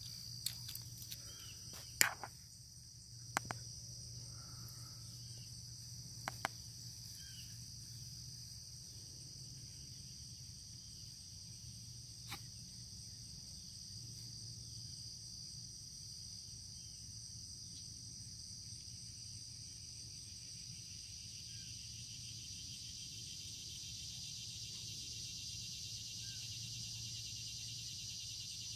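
Steady high-pitched chorus of insects such as crickets, growing a little louder in the last third. Several sharp clicks in the first few seconds and one more about twelve seconds in, over a faint low hum.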